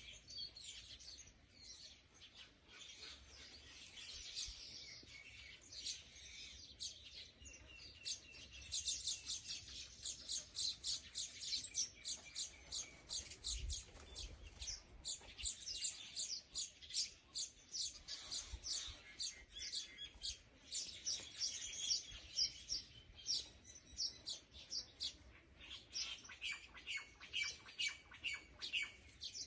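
Small birds chirping: rapid, high, short chirps in quick succession, sparse at first and becoming dense and continuous about a third of the way in.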